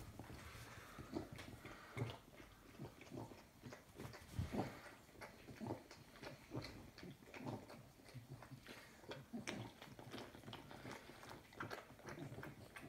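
Staffordshire bull terrier's wet mouth sounds just after giving birth: irregular soft licking and chewing smacks, one or two a second.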